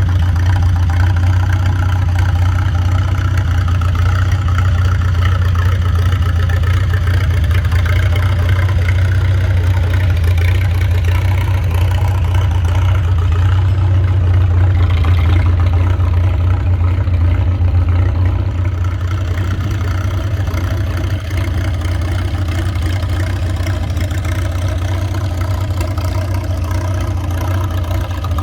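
An engine running steadily at idle, a loud even low hum that eases off slightly about two-thirds of the way through.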